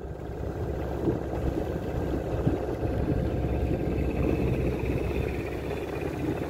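Small boat's outboard motor running steadily, a low rumble with a faint high whine that comes in about halfway through.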